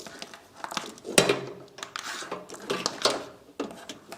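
Power supply cables rustling and their plastic connectors clicking while being sorted by hand to find the SATA power leads, with a sharp click about a second in.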